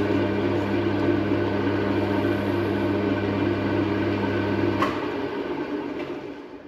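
A workshop machine's electric motor runs with a steady hum. About five seconds in it is switched off with a click and winds down to quiet.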